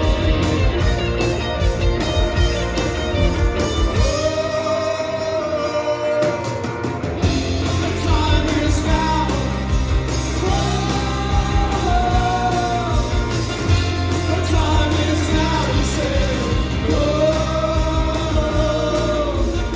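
Live indie rock band playing electric guitars, bass and drums, with a singer coming in three times on long held, arching vocal phrases. The bottom end drops out for a few seconds about four seconds in, then the bass comes back.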